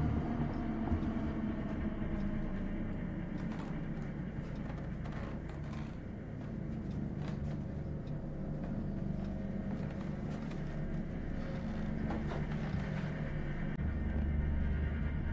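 Low, sustained suspense drone from a film score, with scattered faint ticks and creaks.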